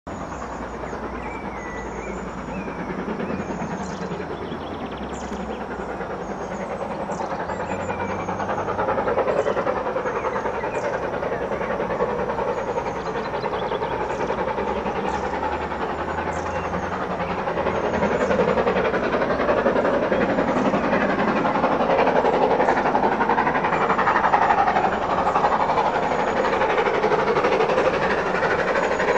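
GWR Hall-class steam locomotive 4965 'Rood Ashton Hall' approaching from a distance under acceleration, its sound growing steadily louder.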